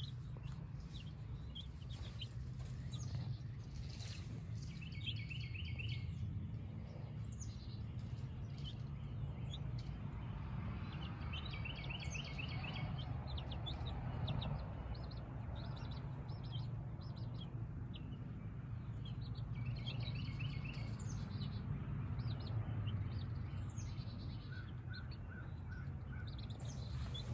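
Birds chirping and peeping: short high chirps scattered throughout, with a rapid trilled phrase that comes three times, over a steady low background rumble.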